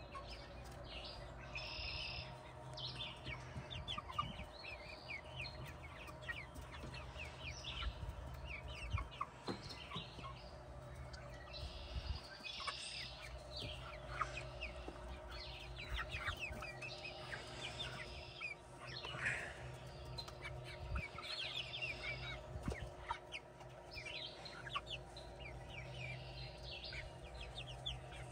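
Chickens clucking and chirping softly, with many short high calls scattered throughout, over a steady low hum.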